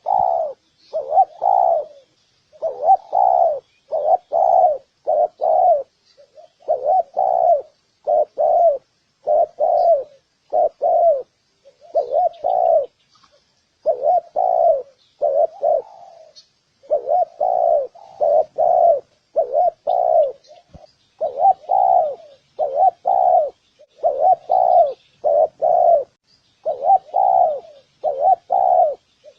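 Spotted doves cooing over and over, phrase after phrase of low, rounded coos with short pauses between phrases. This is the cooing used to lure and rouse wild doves.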